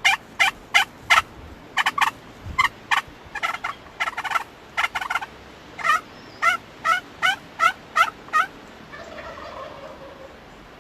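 Turkey yelping: runs of short, evenly spaced notes at about two to three a second, with brief pauses between runs, stopping shortly before the end.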